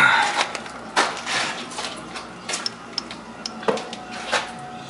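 Hard objects knocking and clattering, about half a dozen sharp knocks at irregular intervals, the loudest right at the start.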